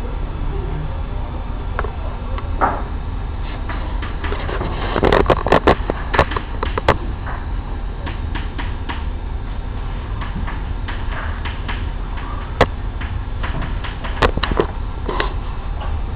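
Classroom room tone: a steady low hum with scattered sharp clicks and taps, thickest about four to seven seconds in and then a few single ones near the end.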